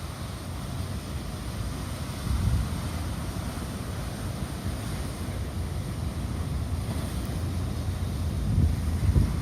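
Heavy sea surf with a steady wash of noise, and wind gusting across the microphone in low rumbles, strongest near the end.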